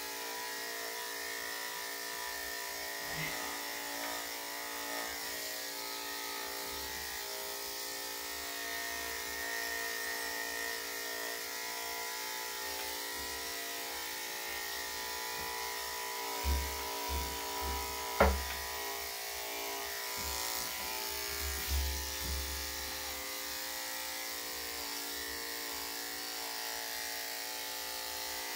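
Electric dog-grooming clippers with a #7 blade running steadily, a constant motor hum, as they are drawn over the dog's body coat. A few low knocks come partway through, the sharpest about 18 seconds in.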